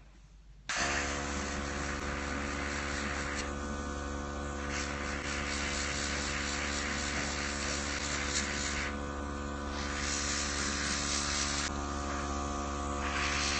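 A small airbrush compressor switches on about a second in and runs with a steady motor hum, while air hisses from the airbrush. The hiss thins out briefly three times as the airflow is cut.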